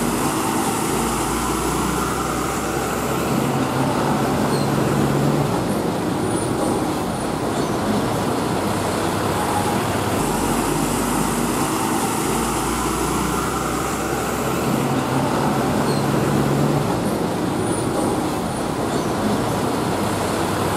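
Steady road traffic noise: running truck engines and tyres on the road, with no single vehicle standing out. The same pattern of sound repeats about every ten seconds, like a looped recording.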